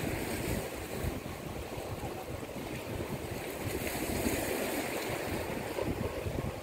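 Wind buffeting the microphone in an uneven low rumble, over the steady wash of small waves breaking on a rocky shore.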